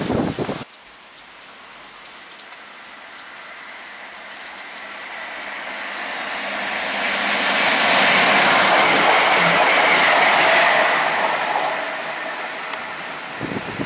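ScotRail Class 170 Turbostar diesel multiple unit approaching and running past through heavy rain, the noise of the train and its wheels on the rails growing louder to a peak about eight to eleven seconds in, then fading. Steady rain hiss lies underneath.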